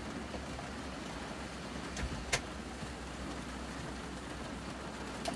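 Rain falling steadily on a camper van's metal roof, heard from inside, with two sharp knocks about two seconds in.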